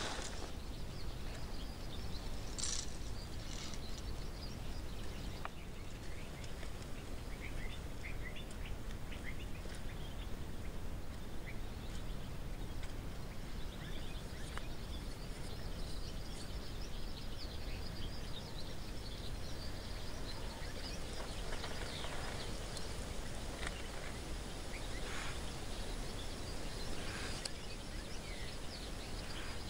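Steady outdoor ambient noise with faint, scattered bird chirps, and a few brief soft rustles here and there, more of them near the end.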